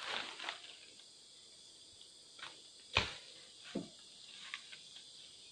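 Steady high-pitched insect hiss with a few scattered sharp knocks, the loudest about three seconds in, typical of work on a wooden pole platform.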